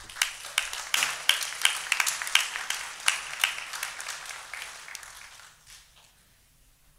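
Audience applauding, thinning out and fading away about six seconds in.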